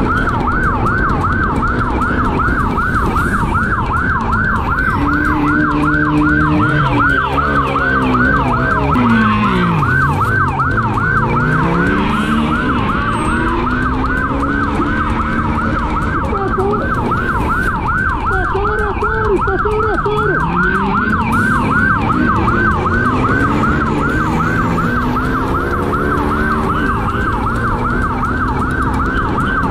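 Police siren in a fast, continuous yelp. Under it, a motorcycle engine revs and its pitch falls and climbs again twice as the bike slows and speeds up through traffic.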